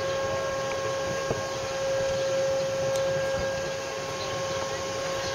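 Steady machinery hum with a constant whine over a low rumble, from a Great Lakes bulk freighter.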